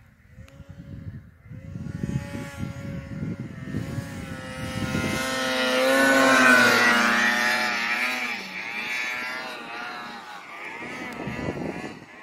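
Snowmobile engine approaching at high revs, passing close by about six to seven seconds in, then fading as it heads away, its pitch dropping as it goes past.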